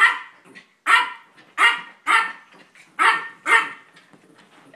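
A small dog barking six times in quick succession, sharp, high-pitched yaps while playing with another small dog.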